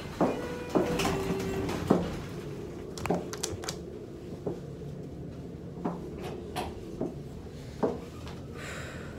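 Elevator doors sliding, with a string of sharp clicks and knocks over a low steady hum, and a brief tone about a second in.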